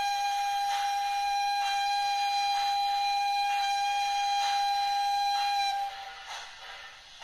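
Model Gr 685 steam locomotive's DCC sound decoder sounding one long steam-whistle blast at a steady pitch through the model's small speaker, cut off about six seconds in. Slow exhaust chuffs come about once a second underneath.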